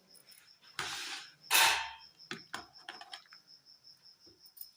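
Spoon and utensil handling as turmeric is added to a pot of jaggery water: two short scraping rustles, the second and louder one about a second and a half in, followed by a string of light clicks and taps. A cricket chirps in a fast, steady pulse in the background.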